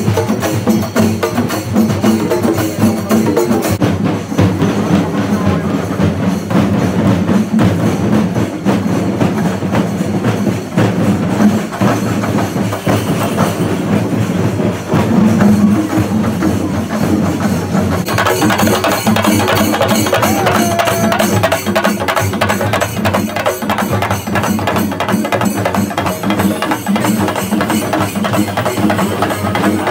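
Kerala temple-festival percussion: a group of chenda drums beaten fast and steadily with sticks, with a metallic clatter over the top.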